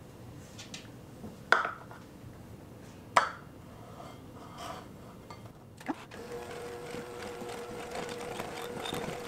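Two sharp knocks of a measuring cup and spatula against a glass mixing bowl, then, about six seconds in, an electric hand mixer starts and runs with a steady hum, beating molasses into thick gingerbread batter.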